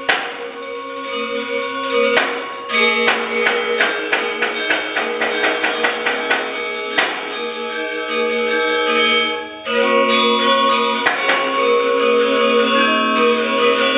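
Balinese gamelan gender wayang, bronze-keyed metallophones struck with mallets, playing a fast piece of many overlapping ringing notes that shimmer together.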